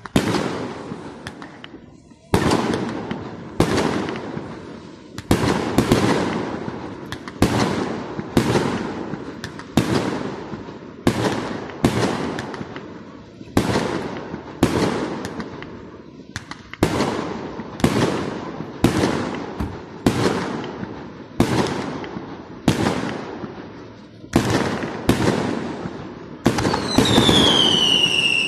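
Aerial firework shells bursting in a steady sequence, about one bang a second, each bang trailing off in echo before the next. Near the end a whistling firework gives one falling whistle.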